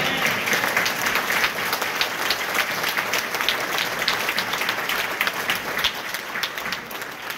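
Congregation applauding: many hands clapping together, tapering off near the end.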